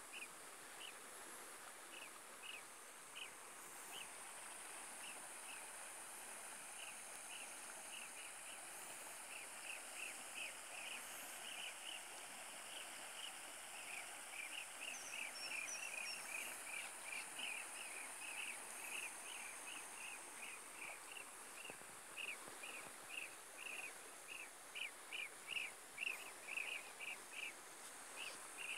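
Riverside ambience: small birds chirping in short repeated calls, a few a second, getting louder near the end, over a steady high hiss.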